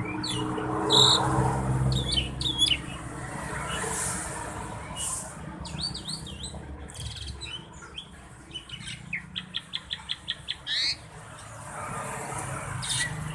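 A starling singing vigorously: a varied string of chirps and whistles, with a fast run of about ten clicking notes a little past the middle.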